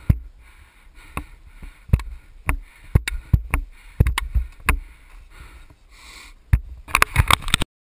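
Irregular sharp knocks and clicks against the body of a helmet-mounted action camera, about a dozen spread through the clip and a quick cluster near the end, over a soft hiss that swells and fades about once a second. The motorcycle's engine is not heard running.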